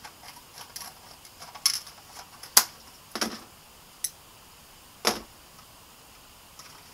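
Scissors cutting into a hard plastic blister pack. There are several sharp, irregularly spaced snips and crackles of stiff plastic, the loudest about two and a half seconds in.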